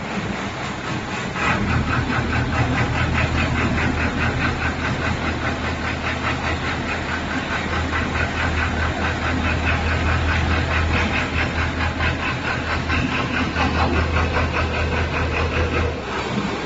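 Water well drilling rig running: a steady low engine drone with a rapid, even clatter over it, building up about a second and a half in and easing off just before the end.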